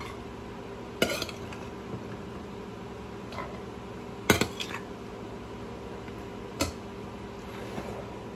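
Metal spoon clinking against a metal pot and plate as ingredients are scooped into the pot: a few sharp knocks, the loudest about four seconds in, over a steady faint hum.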